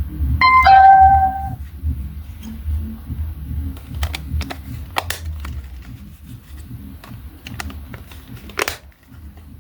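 A short electronic tone with a couple of pitch steps from a small speaker in the first second and a half. Then scattered light clicks and taps over a steady low rumble.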